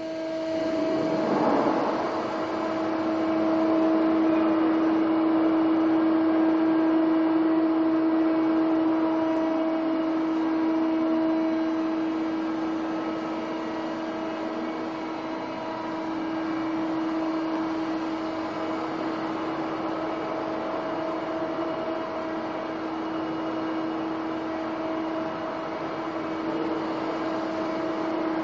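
Doosan G220 CNC lathe standing powered up but not cutting, giving off a steady machine hum with a constant pitched tone.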